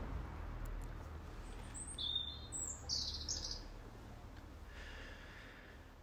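Birds chirping: a quick run of short, high calls gliding in pitch from about two seconds in to about three and a half seconds in, over a faint steady low rumble.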